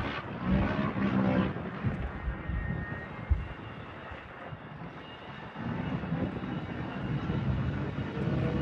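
Off-road race vehicle engines running. The sound is loud early on, fades through the middle and builds again toward the end as another vehicle approaches. There is one sharp knock about three seconds in.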